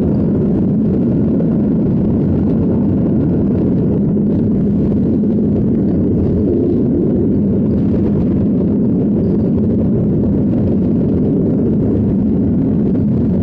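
City bus engine and road noise heard from inside the passenger cabin: a loud, steady low drone with a constant hum.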